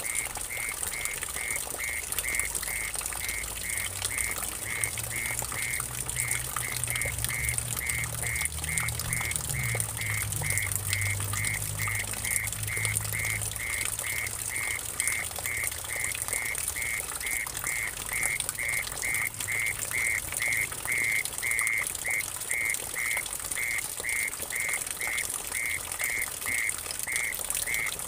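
A mole cricket calling in an even series of short, high chirps, a few a second, over water trickling and splashing into a pool. A low rumble rises and fades in the middle.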